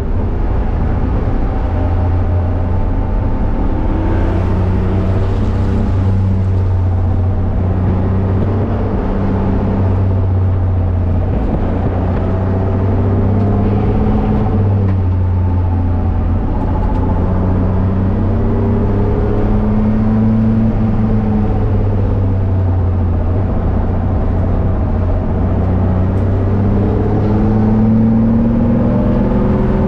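BMW E30's engine under hard track driving, heard from inside the cabin, its revs repeatedly climbing and dropping back as the car accelerates and shifts gears.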